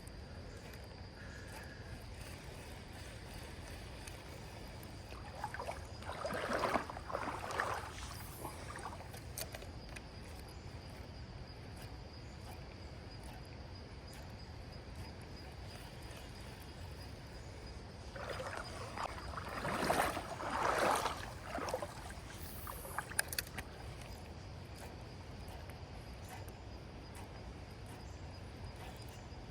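Creek water splashing and sloshing in two short stretches, about six and twenty seconds in, over a steady low rush of moving water.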